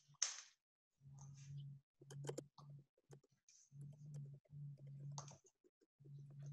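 Near silence: faint scattered clicks and a low hum that cuts in and out, with a brief hiss-like rustle just after the start.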